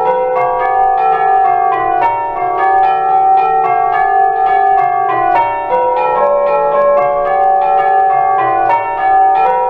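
A ring of eight brass tubular bells by Danks Foundry ringing changes: the bells are struck one after another in a steady, even rhythm, each note ringing on and overlapping the next.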